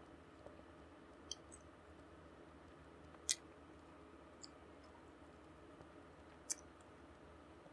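Near silence over a faint steady hum, broken by three short sharp clicks, the loudest about three seconds in.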